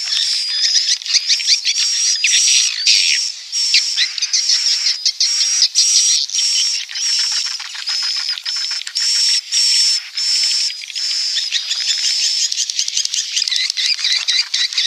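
Swiftlet (walet) calls: dense twittering and rasping chirps with a high, whistle-like tone that comes and goes about every second. It is the 'inap' roosting call, used in swiftlet houses to draw the birds in to roost.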